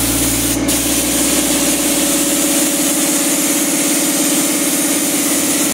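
Paint spray gun hissing steadily while an air compressor hums beneath it. Both cut off suddenly at the end.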